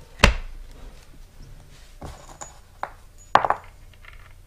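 Plastic gearbox cover of a TiMotion actuator motor being handled and fitted back on by hand: four sharp knocks and clicks, the loudest about a quarter of a second in and another strong one a little after three seconds.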